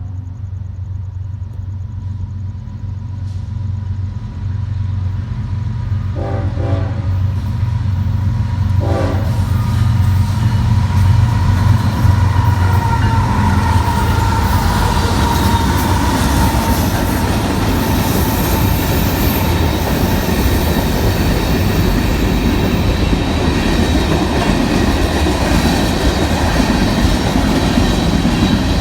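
Union Pacific mixed freight train approaching and passing: the diesel locomotive rumble builds, the horn gives two short blasts about six and nine seconds in, then the steady rush and clickety-clack of the rail cars rolling by close.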